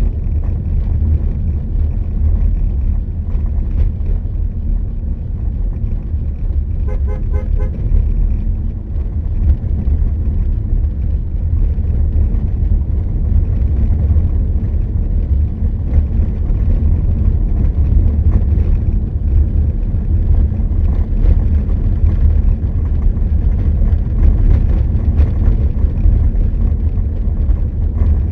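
Steady low rumble of wind and road noise from travelling along a road, with a vehicle horn sounding briefly about seven seconds in.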